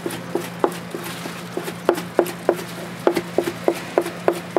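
Knife chopping sundae and offal on a cutting board: a quick, uneven run of sharp knocks, about three or four a second.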